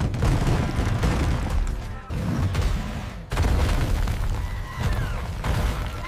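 Cartoon crash effects of a wall of big blocks smashing and tumbling down, with heavy impacts at the start, about two seconds in and a little after three seconds, over background music.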